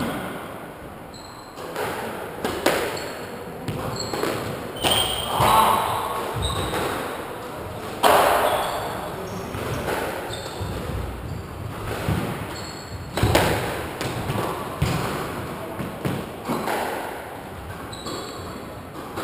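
Squash ball knocks off racket, walls and floor at uneven intervals, with short squeaks of court shoes on the wooden floor.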